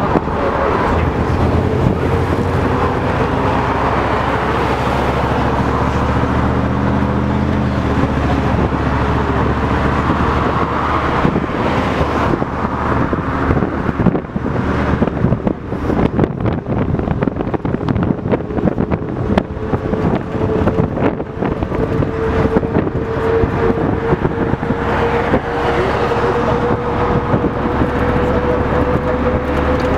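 Inside a LiAZ-677M bus under way: its ZIL V8 petrol engine drones steadily, with a thin whine that rises slowly in the second half and loose rattles from the old bus body.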